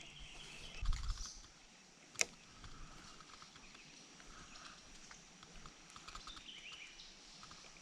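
Quiet outdoor ambience with birds chirping and a faint steady high tone, a low rumble of handling about a second in, and one sharp click about two seconds in.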